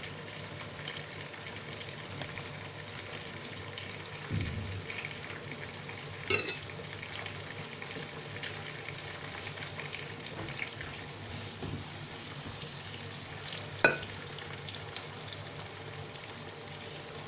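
Onion, tomato and hot pepper stew base frying in oil with a steady sizzle. A few sharp clicks, about six seconds in and again near fourteen seconds, break through it.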